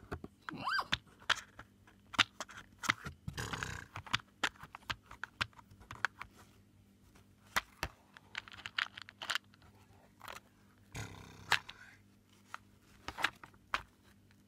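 Small plastic beads clicking and rattling in a cardboard box as toy horse figures are pushed in among them, with scattered sharp taps and two longer scrapes.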